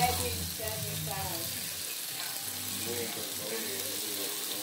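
Hamburger patties sizzling as they fry in hot grease and steak sauce, a steady hiss, with faint voices in the background.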